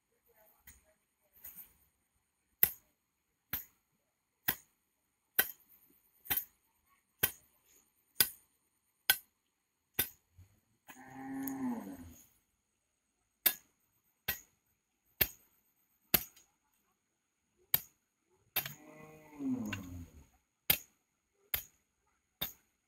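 A hoe chopping into hard earth in sharp strikes about one a second. A cow moos twice, each a long call falling in pitch, about halfway through and again a few seconds before the end.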